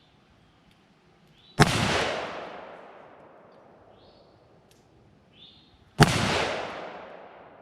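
Two rifle shots about four and a half seconds apart, each a sharp crack followed by a long echo that fades over more than a second. The rifle is firing 5.56/.223 ammunition.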